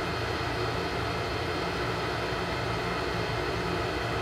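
Steady low hum and hiss of background room noise, unchanging throughout.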